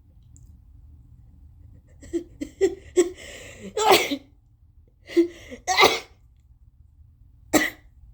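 A person sneezing, with the sneezes brought on by tickling the nose with a tissue. A few quick catching gasps lead into a sneeze about four seconds in, then another gasp and a second sneeze about six seconds in, and a shorter third burst near the end.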